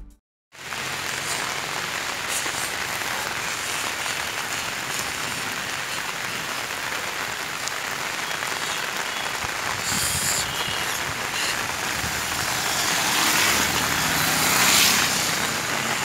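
Heavy rain falling steadily on a road, an even hiss, with a vehicle engine growing louder near the end.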